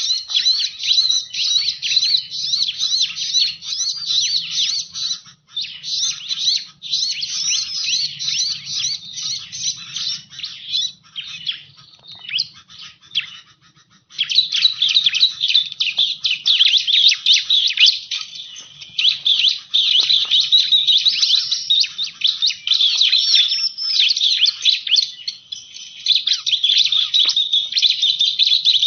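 Bar-winged prinia (ciblek) song used as a lure call: fast, high-pitched chirping and trilling, almost without pause, thinning out to scattered notes about eleven seconds in before starting up again densely about three seconds later.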